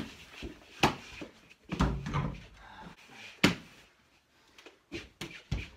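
Irregular sharp knocks of a mini basketball bouncing on a hardwood floor and hitting the small backboard and rim, mixed with sneakers landing on the floor. A duller, heavier thud comes about two seconds in, and a quick cluster of knocks near the end.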